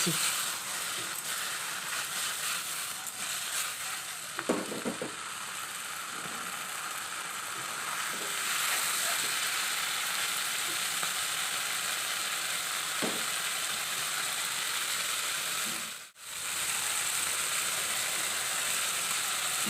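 Pieces of tilapia sizzling steadily as they fry in mustard oil in a kadai, with occasional light stirring. The sizzle drops out briefly about sixteen seconds in, then carries on.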